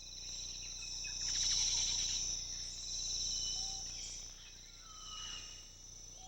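Steady chorus of trilling crickets, high-pitched and fast-pulsed, with a few faint short whistles.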